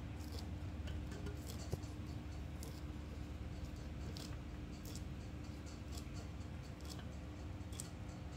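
Pot of soup broth at a rolling boil: irregular small pops and ticks of bursting bubbles over a steady low hum, with one sharper knock about two seconds in.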